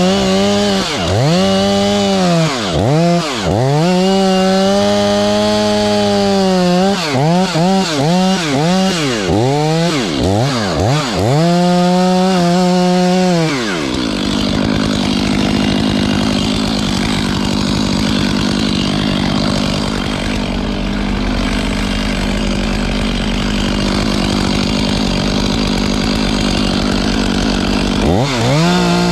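Two-stroke chainsaw at high revs, its note dropping and climbing back again and again as the throttle is blipped. From about halfway the pitch holds steady under a rough rasp as the chain cuts into wood, and near the end the revs dip and rise once more.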